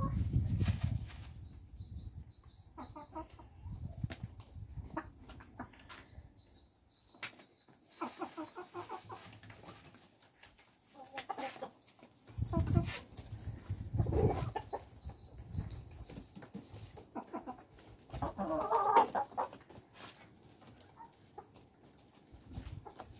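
Chickens clucking in short bouts, the loudest near the end, while they are fed by hand. A few low thumps sound in between.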